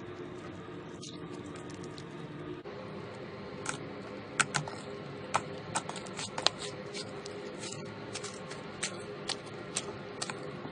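Slime being pressed and worked by hand, giving sharp, irregular clicks and crackles that come thicker from about halfway through.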